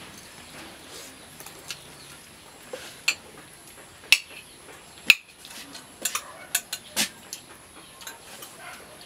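Metal spoon clinking and scraping against a ceramic soup bowl during eating, with a scatter of sharp clinks, the loudest a little past the middle.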